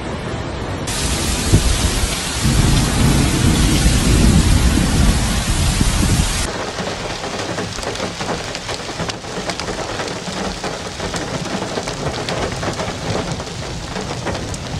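Muddy flash floodwater rushing, a steady noise with a deep rumble that swells about two seconds in and cuts off sharply after about six seconds. After that comes a lighter rushing hiss with many small crackles as the flood front spreads over dry ground.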